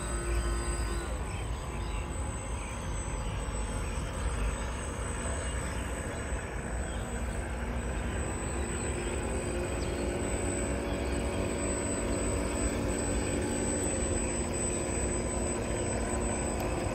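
Whine of the radio-controlled model ferry's drive motors: a steady tone that cuts off about a second in, comes back about halfway through, rises a little and winds down near the end as the boat comes in to the edge.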